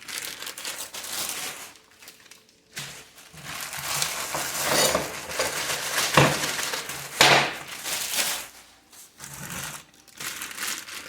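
Packaging crinkling and hard parts of a cable management tray kit being handled and set down, with two sharp knocks about six and seven seconds in.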